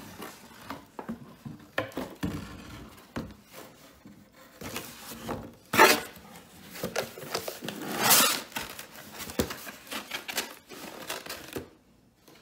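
Cardboard shipping box being opened and unpacked by hand: flaps folded back and contents handled, with irregular rustling, scraping and clicks. A sharp scrape comes about six seconds in and a longer, louder rustle about two seconds later.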